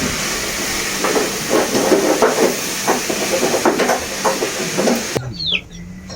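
Sweet potatoes frying in hot oil, a steady sizzle with crackling pops. About five seconds in it cuts to a much quieter scene with short, high chirps.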